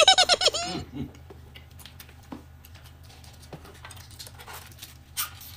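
A short, rapid, high-pitched warbling sound in the first second, then faint scattered clicks and taps of people eating and handling tableware over a steady low hum.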